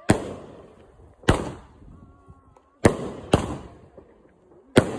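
Consumer aerial fireworks going off overhead: five sharp bangs at uneven intervals, two of them close together near the middle, each trailing off with a short echo.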